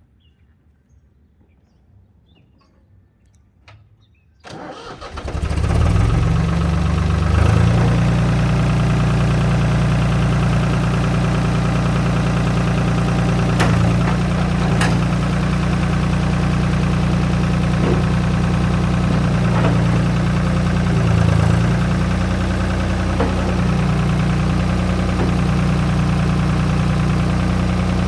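Ford 3600 tractor's three-cylinder diesel engine cranked and starting about four seconds in, catching within a second or so, then running at a steady idle.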